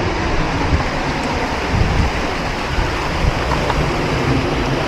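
Ocean surf breaking and washing over rocks at the foot of a sea cliff, a steady rushing with wind buffeting the microphone.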